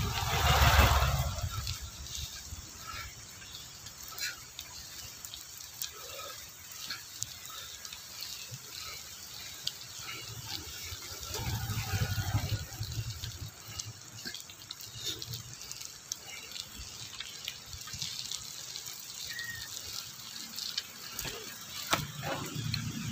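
Rain and wet-road noise: a steady hiss with many scattered drip-like ticks. A motorbike passes close by in the first second or so.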